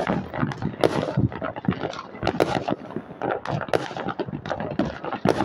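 Many fireworks and firecrackers going off at once: a dense, irregular run of bangs and pops, several a second.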